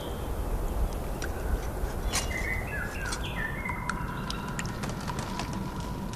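Birds chirping in short bursts over a steady low ambient rumble, with scattered sharp ticks.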